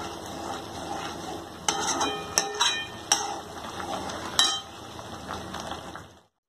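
Steel spoon stirring thick simmering gravy in a steel kadai, scraping the pan and giving several sharp metallic clinks. The sound cuts off abruptly near the end.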